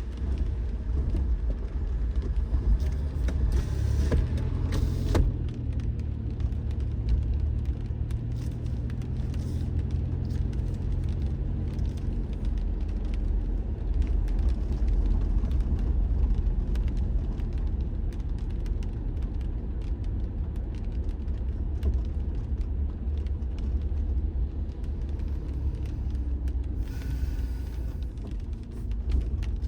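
Car driving along, with a steady low road and engine rumble and a brief click about five seconds in.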